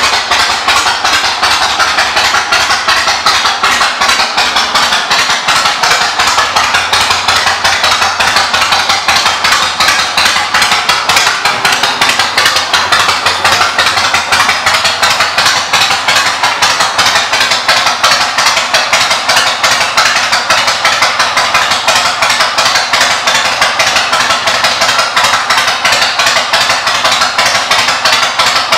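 Yamaha Road Star Midnight's air-cooled V-twin running steadily through aftermarket Freedom exhaust pipes, a fast even train of firing pulses.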